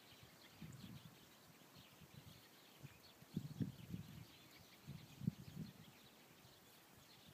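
Wind buffeting the microphone in a few low, gusty rumbles, about a second in and twice more in the middle, with faint chirps of distant small birds scattered between them.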